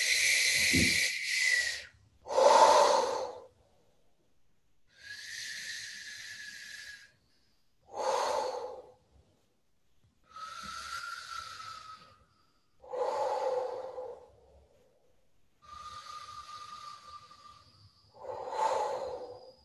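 A woman's deep, forceful breathing in a breathwork exercise: about four cycles of a long hissing breath with a faint whistle, lower each time, each followed by a shorter, louder breath.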